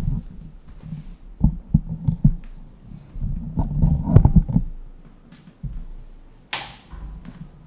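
Low knocks and thumps of a power supply cord being handled and plugged into an embroidery machine, with a short scraping hiss about six and a half seconds in.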